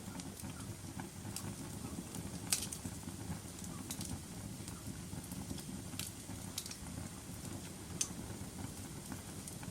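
Wood fire in a fireplace crackling: a steady low rumble of flames with scattered sharp pops, the loudest about two and a half seconds in and again near eight seconds.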